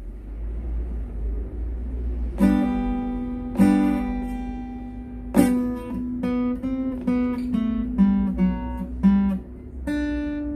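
Guitar played slowly by a beginner practising an intro line in G: a steady low hum for about two seconds, then struck chords and single plucked notes, each ringing briefly before the next.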